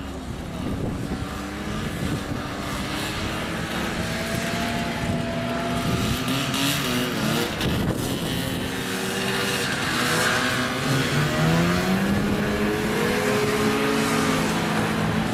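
A line of snowmobiles passing one after another, their engines running and overlapping, each one's pitch rising and falling as it goes by.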